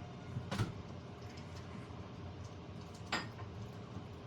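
Two light clicks of small hard objects, about two and a half seconds apart, over a steady low hum.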